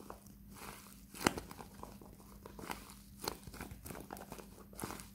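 Homemade taped-paper cake squishy crinkling as it is squeezed and turned in the hand, with scattered crackles and one sharper crackle about a second in.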